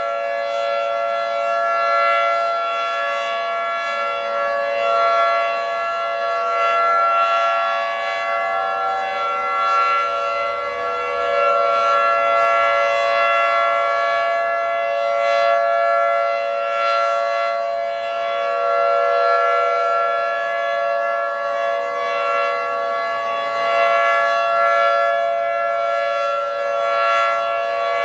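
Federal Signal 2T22 two-tone rotating outdoor warning siren sounding a steady chord, the alert signal. The pitch stays level while the loudness swells and fades every few seconds as the rotating horn sweeps past.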